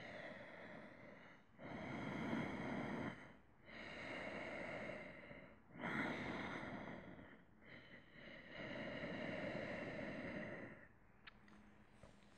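A man's slow, deep breathing, picked up close by a headset microphone: about five long breaths in and out, each lasting one to three seconds.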